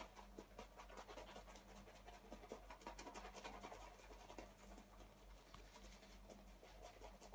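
Faint, rapid scratchy brushing of a 30mm synthetic tuxedo shaving brush working lather over the face.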